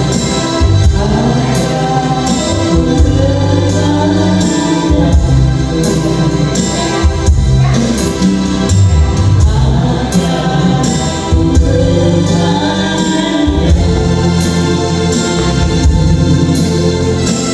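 Music: singing over an electronic keyboard accompaniment.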